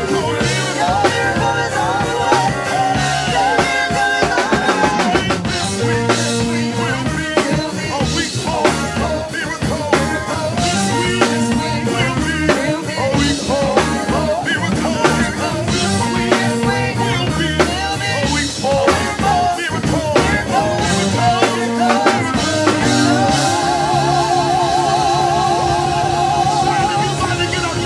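A live gospel band playing: keyboards, electric bass guitar and a drum kit, with a steady beat. A held keyboard note with a wide vibrato comes in over the last few seconds.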